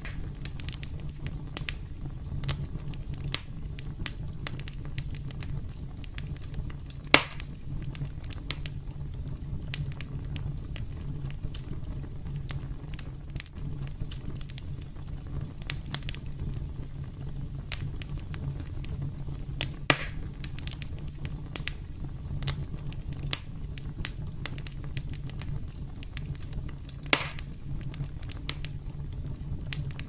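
Campfire burning with a steady low rumble and scattered wood crackles, with three louder pops: about a quarter of the way in, about two-thirds in and near the end.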